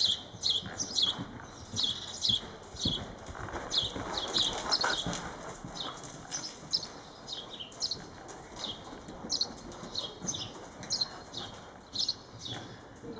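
A horse cantering on soft indoor-arena footing: rhythmic hoofbeats, with sharp high chirps repeating several times a second throughout.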